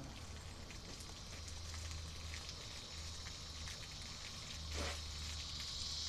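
Water from a garden hose sprayer hissing and splashing as it is forced into a Cuisinart coffee maker and runs out of the bottom, getting louder about five seconds in. The water is being pushed through to flush the machine's water line, which is probably clogged.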